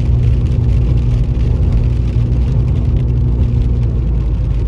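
Car driving on a wet road, heard from inside the cabin: a steady low rumble of engine and tyres with a constant hum, over a light hiss from the wet pavement.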